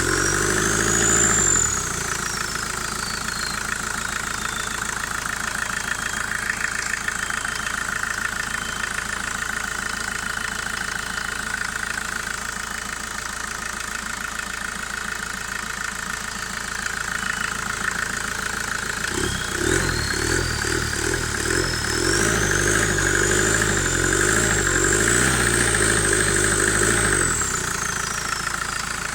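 VW Passat B3 1.9-litre turbodiesel idling with its original turbocharger whistling. The whistle falls away in the first few seconds. About two-thirds of the way in, the engine is revved for several seconds: the turbo whistle climbs to a high pitch and holds there, then drops back down as the revs return to idle near the end.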